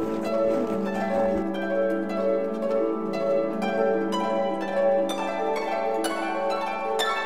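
Background music: a gentle plucked-string melody over a held low note. A low rumble under it stops about a second and a half in.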